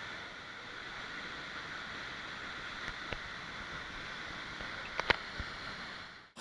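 Steady rush of flowing water, with a few sharp clicks about three seconds in and again about five seconds in; it stops abruptly near the end.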